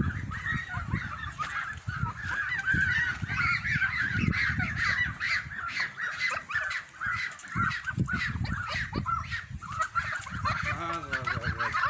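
Young domestic geese honking in a rapid, continuous run of short calls, with low thuds underneath.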